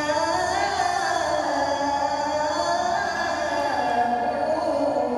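A boy's voice reciting the Quran in the melodic tilawah style, amplified through a handheld microphone: one long phrase of held notes with slow pitch glides and ornaments.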